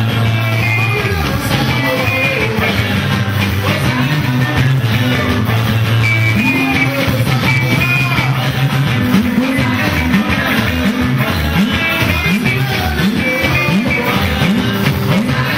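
Live band music: interlocking electric guitar lines over drums and a low bass line, with voices singing. About nine seconds in, the bass turns to quick sliding runs.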